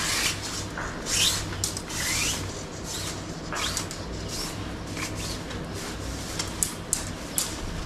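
Nylon tent fabric rubbing and rustling as a tent pole is worked through it into place, in a series of irregular swishes and scrapes.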